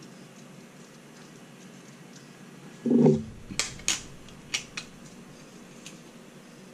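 A dull thump about three seconds in, then a handful of sharp metallic clicks as small screws and bolts are handled and fitted by hand into a metal plate.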